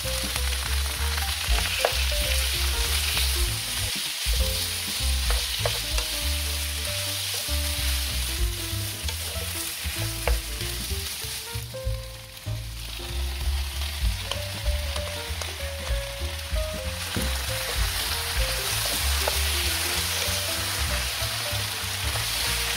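Fish cake strips, onion and peppers sizzling in a hot frying pan, stirred with a wooden spoon. The sizzle drops briefly about twelve seconds in as the seasoning sauce is poured in, then picks up again.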